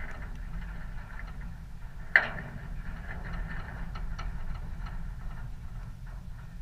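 A football being kicked: one sharp, loud thud about two seconds in, then a few fainter knocks, over a steady low rumble.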